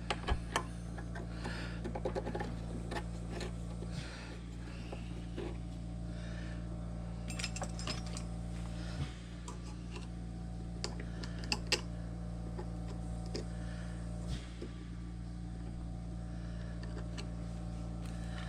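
Small metal parts of a key machine's spindle assembly clicking and tapping as they are handled and fitted by hand, in scattered light knocks with a few sharper clicks. A steady low hum runs underneath.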